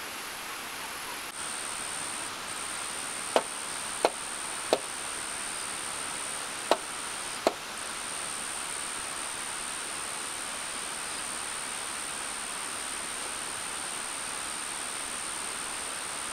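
Wooden mallet knocking on timber frame beams: five sharp knocks, three in quick succession a few seconds in and two more about two seconds later. A steady high-pitched drone carries on underneath.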